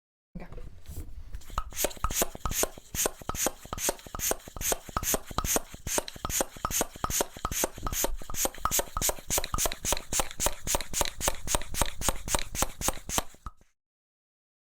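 Bicycle floor pump worked in rapid, even strokes, about three or four a second, each with a short hiss of air; the pumping stops about a second before the end.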